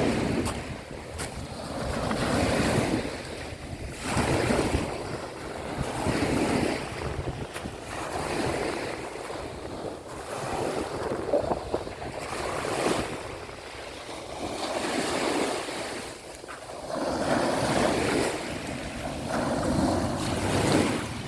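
Sea waves washing in and breaking, the surf swelling and fading every couple of seconds, with wind rumbling on the microphone.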